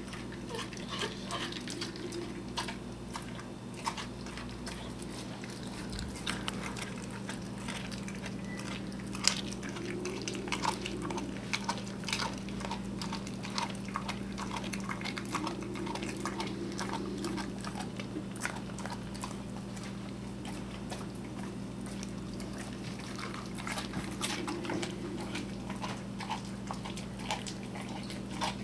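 A Rottweiler chewing and biting on a rubbery raw goat green tripe, with irregular chewing clicks throughout over a steady low hum.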